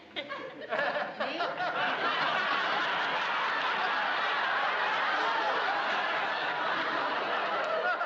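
Audience laughter, swelling up about a second in and then holding steady as a long, loud laugh.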